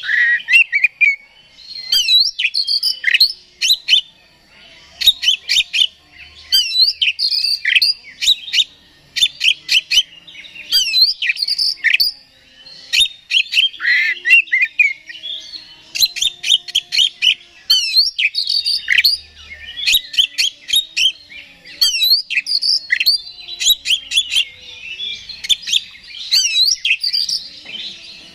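Oriental magpie-robin (kacer) singing loudly in bursts of rapid, varied whistles and chattering notes, one phrase after another with short pauses between.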